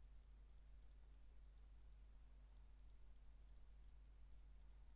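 Near silence: a low steady hum of recording noise, with faint scattered ticks.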